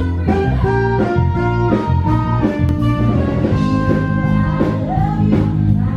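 Loud rock-style music with electric guitar, drums and a singing voice.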